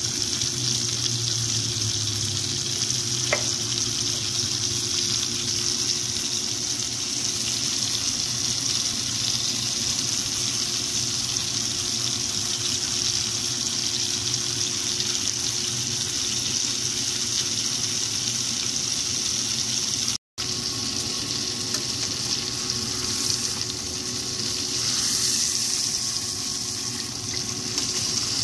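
Pork chop sizzling steadily as it fries in a pan of hot, bubbling oil, with one brief break about two-thirds of the way through.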